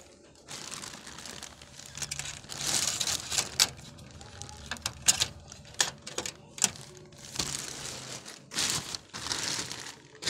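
Crinkling and rustling noises, coming in repeated bursts, with many sharp clicks and taps scattered through.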